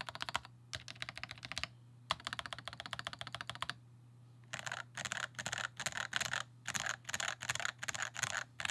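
Melgeek Pixel mechanical keyboard typed on fast, with its factory-lubed red linear switches giving a rapid run of key strikes. Two short pauses break the typing, and it is louder and denser from about halfway through.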